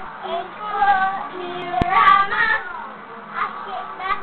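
Young girls singing together in phrases, with one sharp knock a little under two seconds in.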